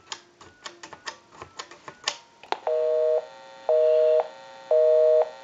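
Touch-tone keypad of a Mickey Mouse novelty telephone pressed in quick succession, giving short dialing tones and key clicks. About two and a half seconds in, the line answers with a busy signal: a two-tone beep, half a second on and half a second off, repeating about once a second. The busy signal shows the called number is in use.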